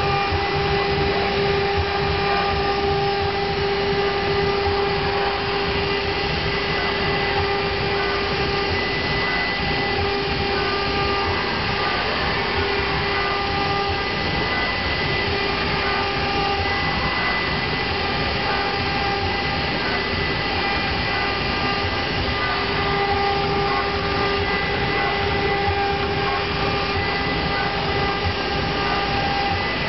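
Twin spindles of a two-head CNC router running and cutting into wood board, a steady whine over the rushing noise of the bits. The whine weakens briefly a couple of times along the way.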